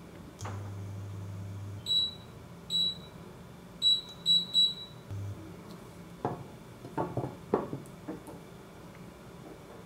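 Induction hob's touch panel beeping as its controls are pressed: five short high beeps between about two and five seconds in. Then a glass pan lid clinks and clatters onto the rim of the pan several times.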